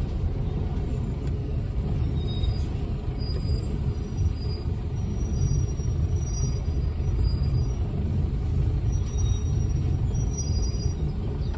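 Heavy goods vehicle's diesel engine running steadily as the lorry drives along, a continuous low rumble with no changes in pitch.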